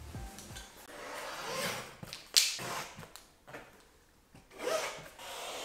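Chalk marker drawing lines on a blackboard along a ruler: several scratchy strokes, with a sharp tap about two and a half seconds in and another near the end.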